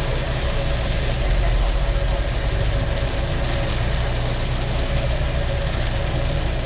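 Steady low rumble with a constant hum, typical of a street-stall cooking setup, under the even hiss of an oyster omelette sizzling on a flat steel griddle.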